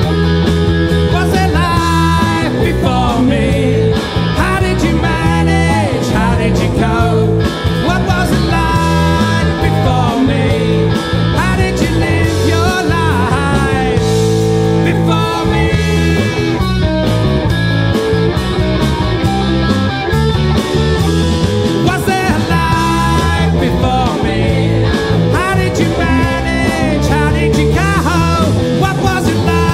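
Live rock band playing a song: distorted electric guitar and drums under male lead vocals, with a second voice joining in.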